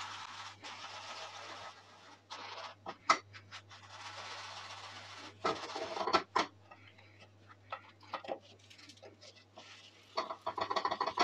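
Bagel halves frying in a little oil in a nonstick pan: a soft, steady sizzle broken by light taps, scrapes and rubs as the bagels are placed and pressed down by hand, with louder handling noises about halfway through and near the end.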